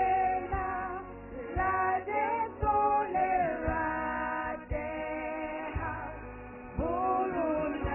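Four women singing a gospel song in harmony through stage microphones, several voices held together in long phrases.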